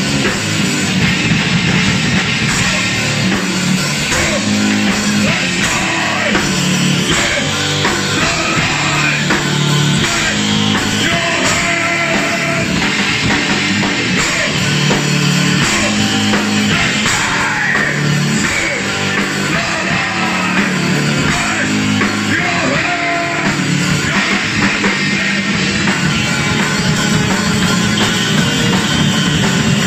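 Live rock band playing loud: two electric guitars, bass guitar and a drum kit together.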